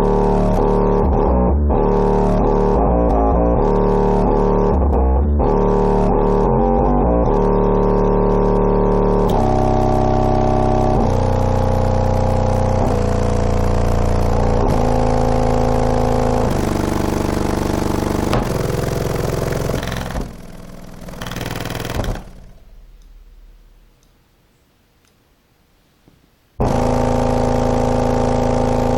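Music played loud through a JL Audio W7 subwoofer that is being driven hard, with long held bass notes changing pitch every second or two. The music sinks about twenty seconds in and goes almost silent for a few seconds, then cuts back in loud near the end.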